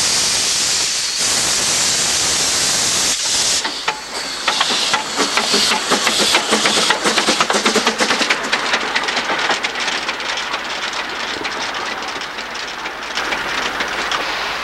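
Loud steady hiss of steam venting from narrow-gauge 0-4-4-0 steam locomotive No. 5 Hamra's cylinder drain cocks. After about three and a half seconds it gives way to the locomotive running past close by, with rapid clicking and knocking of its wheels over the rail joints and points, growing quieter as it moves away.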